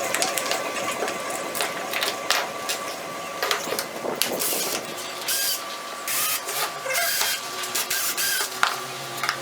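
A power drill run in several short bursts, driving screws, with knocks of handling between them over a steady high hum.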